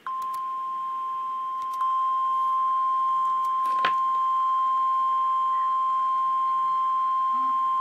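NOAA Weather Radio 1050 Hz warning alarm tone: one steady, unbroken beep announcing a severe thunderstorm warning. It starts abruptly, gets louder about two seconds in, and is crossed by a brief click a little before the halfway point.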